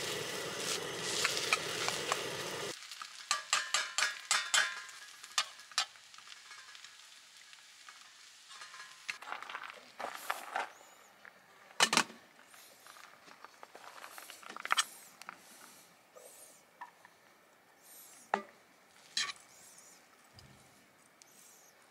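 Egg fried rice sizzling in a wok over a gas burner, with a metal ladle clattering, for the first couple of seconds; the sizzle then stops abruptly. After that, rapid clicks and then scattered clinks and scrapes as utensils work the rice in the wok and scoop it into a bowl.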